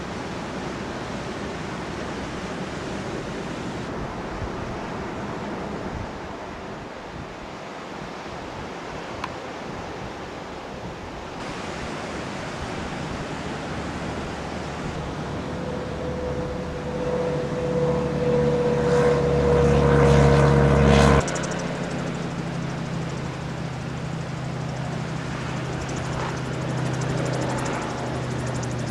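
Wind buffeting the microphone, then a light propeller aircraft's engine growing loud as it runs close by, with a whine that falls slightly in pitch. It cuts off abruptly about three-quarters of the way through and gives way to the steadier drone of a gyroplane's engine in flight.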